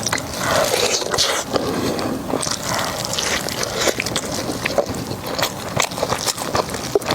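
Close-miked eating: wet chewing and mouth smacking with many small crisp clicks.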